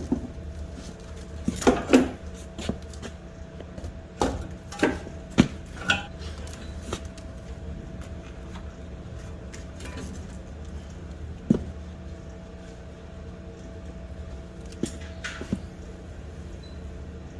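Bolts and metal suspension parts clinking and clattering as they are handled, in scattered sharp knocks with a cluster early on and a few single ones later, over a steady low hum.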